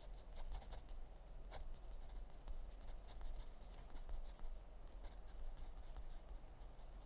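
Pen scratching on paper in short, irregular strokes, faint, over a low steady room hum.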